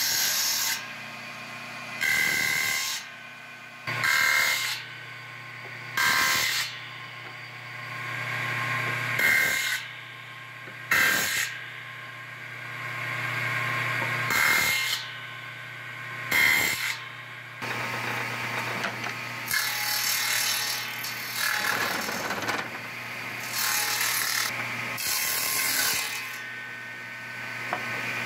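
Table saw motor running with a steady hum while its circular blade cuts wood in a series of short bursts about every two seconds. In the second half the cutting becomes longer and more continuous.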